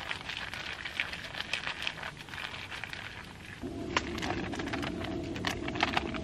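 Wood campfire crackling with irregular sharp pops and ticks. About three and a half seconds in, a steady low hum joins it.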